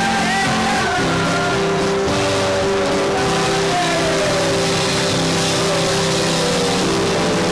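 Rock music with a held chord ringing on, and one note sliding slowly down in pitch from about three seconds in.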